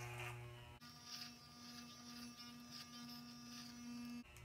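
Corded electric hair clippers buzzing steadily while cutting hair at the back and side of the head. The buzz shifts abruptly to a higher pitch about a second in and drops back near the end.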